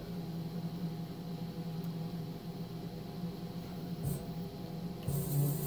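Steady low mechanical hum with a light hiss, and one faint click about four seconds in.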